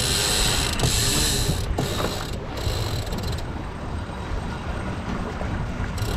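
A sailboat's sheet winch being ground in after a tack, its pawls clicking rapidly in two spells of about a second and a half each. Wind rumbles on the microphone underneath.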